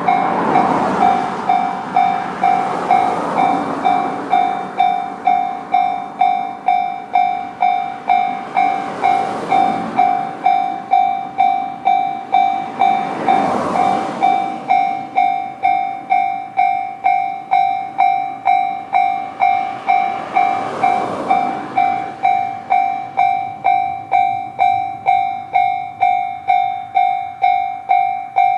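Japanese level-crossing electronic alarm (the JR standard crossing sound) ringing steadily, just under two strikes a second. Swells of rumbling rail noise rise and fall under it several times as a train passes.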